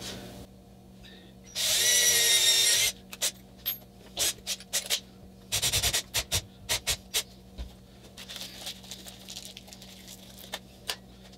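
Cordless drill motor runs steadily for just over a second, then a string of sharp clicks and ratcheting follows as the bit is changed in its keyless chuck.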